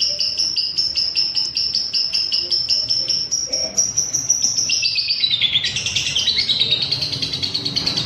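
Lovebird singing a long, fast chattering trill of high notes, about eight a second. About five seconds in, the trill slides down in pitch and carries on lower, in the unbroken style that keepers call ngekek.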